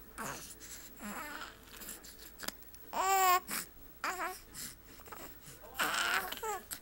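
A young baby cooing and babbling in short vocal bursts, the loudest a wavering, high squeal about three seconds in.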